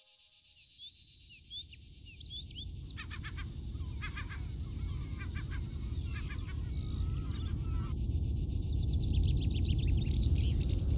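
Low rushing rumble of the Space Shuttle orbiter gliding in on final approach, unpowered, growing steadily louder. Birds chirp and call in short clusters over it.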